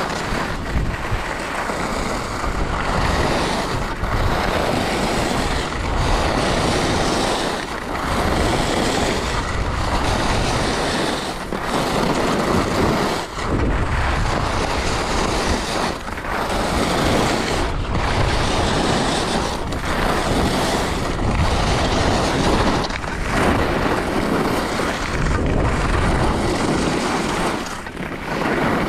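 Skis scraping and carving over packed snow at speed, with wind buffeting the microphone in a heavy low rumble. The hiss swells and eases about every two seconds, in time with the turns.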